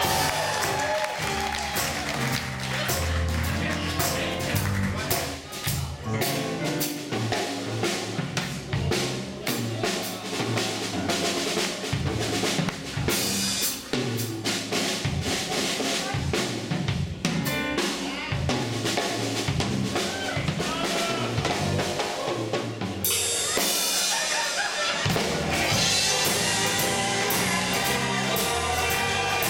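Live drum kit played as a solo feature, with snare, rimshot and bass drum hits, and the rest of the band coming back in about 25 seconds in.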